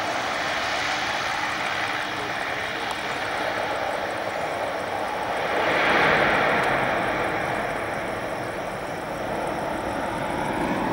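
Airliner on final approach passing close by: a steady engine noise swells to its loudest about six seconds in, then fades as it goes past.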